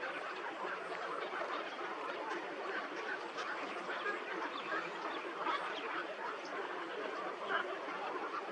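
A flock of many birds calling together in a dense, continuous chatter of short overlapping calls.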